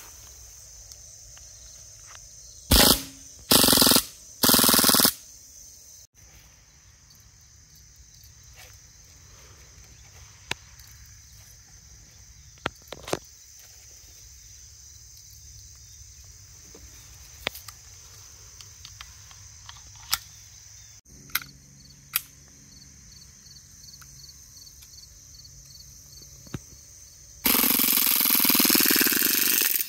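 Umarex M712 CO2 BB pistol firing: a single short shot and then two half-second full-auto bursts in quick succession about three to five seconds in, and near the end one long full-auto burst of about two and a half seconds. In between come faint clicks of magazine handling, over a steady high chirring of insects.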